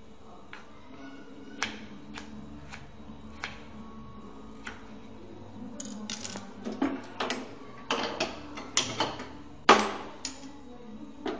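Irregular sharp clicks and knocks of kitchen things being handled: single taps at first, then a denser run of louder clatters in the second half, the loudest a little before the end.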